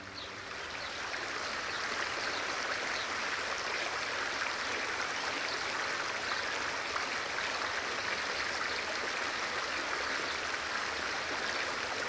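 River water running over stones in a shallow riffle, a steady rushing that fades in over the first couple of seconds.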